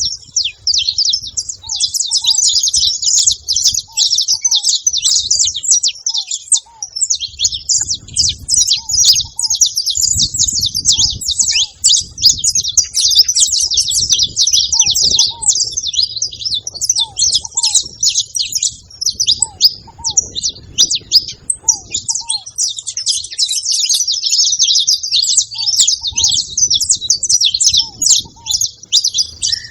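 Saffron finches chattering and singing in a dense, nearly continuous mass of high chirps and trills. Short, lower notes recur in pairs every second or two underneath.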